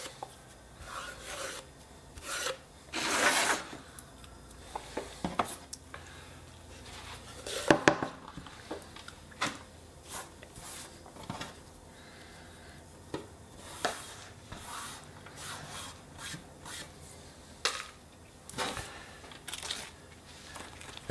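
Intermittent scraping and rubbing on a wooden cutting board, with light knocks, as chopped onion and garlic are pushed off it into a plastic tub and the board is shifted on the wooden benchtop. The longest, loudest scrape comes about three seconds in.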